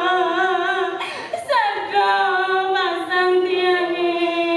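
A woman singing solo and unaccompanied, in long held notes that waver with vibrato; a new phrase begins about a second in.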